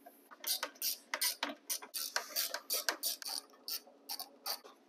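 Hand ratchet wrench clicking in a series of short, uneven strokes, backing out a bolt.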